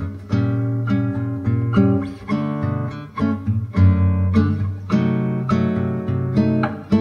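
Background music: acoustic guitar played in a steady rhythm of plucked and strummed chords.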